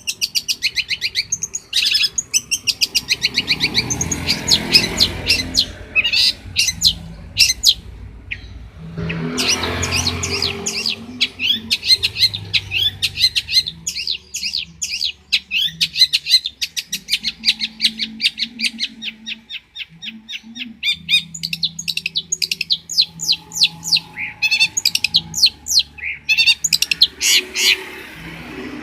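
Long-tailed shrike (cendet) singing a loud, varied song of fast chattering runs and rapidly repeated high notes, with few pauses.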